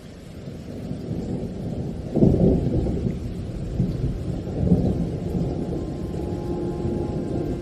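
Deep, rolling thunder-like rumble in the background soundtrack. It builds up, swells loudest about two seconds in and again near five seconds, and a low held music note enters near the end.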